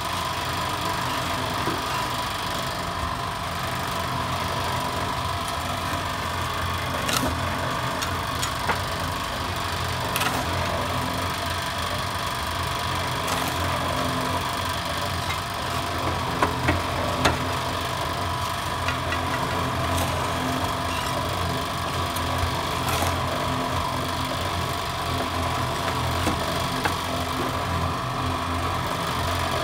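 Small electric drum mortar mixer running with a steady hum, while a shovel scrapes and knocks through sand and cement now and then, with a quick cluster of knocks a little past halfway.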